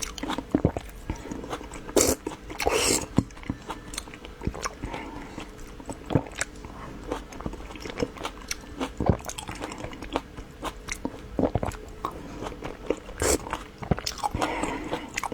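Close-miked eating: biting and chewing sweet pastries, with many small wet mouth clicks and a few louder crisp crunches.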